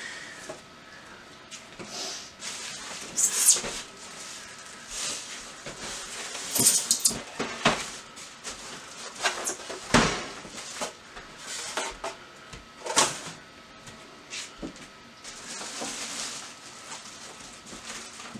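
Styrofoam packing being pulled off a computer case: squeaks of foam rubbing on foam and on the case, with irregular knocks and scrapes and two sharper knocks past the middle.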